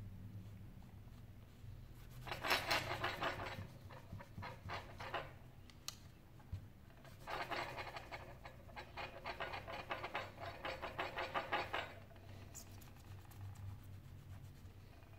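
A cleaning cloth rubbed against the edge of a Sony Xperia Z5 Compact smartphone in two spells of quick back-and-forth wiping strokes: a shorter spell about two seconds in, then a longer one about halfway through.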